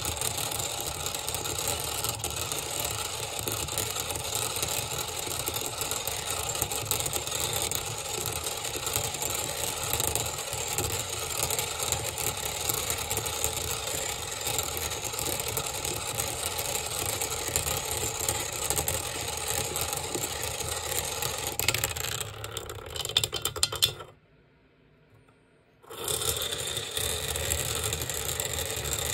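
Magnetic stirrer running under a glass cylinder of water, a steady mechanical whir as it spins the vortex. Near the end it cuts out suddenly for about two seconds, then starts up again.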